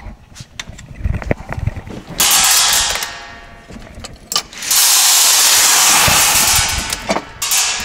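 Two bursts of loud hissing noise, one short and dying away, then one of about two seconds, among sharp clicks and clanks of metal parts being handled.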